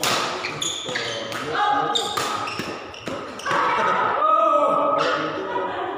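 Badminton rackets striking a shuttlecock in a doubles rally: a string of sharp smacks over the first three seconds. After the rally, players' voices call out loudly from about halfway through.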